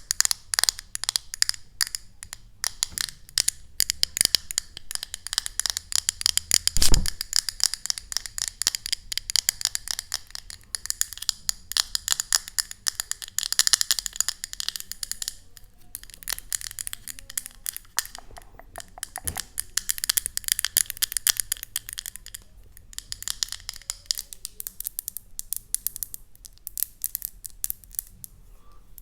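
ASMR tapping and scratching: rapid fingernail taps and scrapes on objects held close to the microphone, with brief pauses and one heavier knock about seven seconds in.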